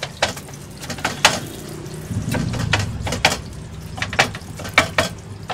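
Cleaver chopping a fried martabak telur into pieces on a cutting board: a run of about ten sharp knocks, several in quick pairs. Under them is the steady sizzle of oil in a wide frying pan.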